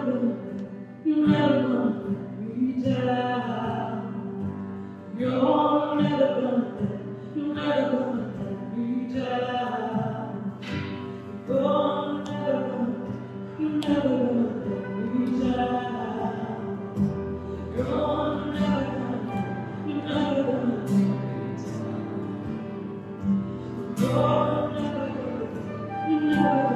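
Live worship song: a woman singing a repeated chorus line over electric keyboard, with a flute playing along.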